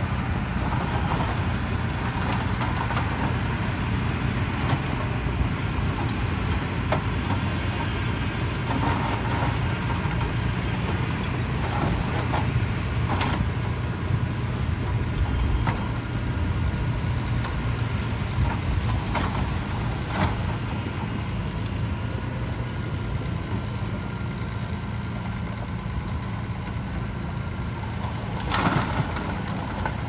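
Heavy dump truck's diesel engine running steadily as its hydraulic bed raises to tip a load of soil. A few sharp knocks come through, the loudest near the end.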